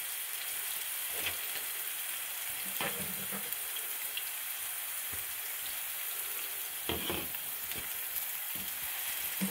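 Chopped onions, carrots and celery sizzling steadily in hot vegetable oil in a large pan, with a few light knocks against the pan as they are added and stirred.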